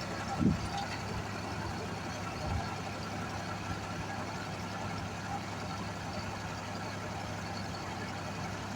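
Dexter tractor's diesel engine running steadily under a few revs, with a brief knock about half a second in.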